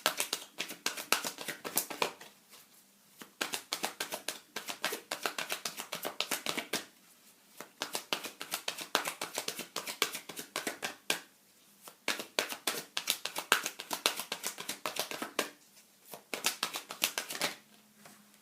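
A deck of oracle cards being shuffled by hand: runs of rapid flicking clicks in about five bursts, with short pauses between them.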